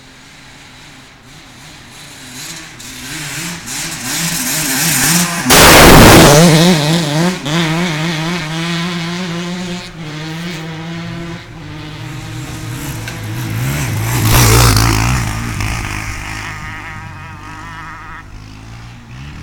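Dirt bike engines revving up and down as the bikes ride past, growing louder to a close pass about six seconds in, with a second loud pass near fifteen seconds before fading away.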